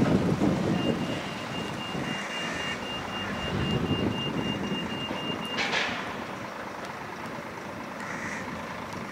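Narrow-gauge open-top double-deck electric tram running away along the track, its rumble fading, while a rapid high-pitched electronic beeping goes on for about five seconds. A single sharp clank comes just as the beeping stops.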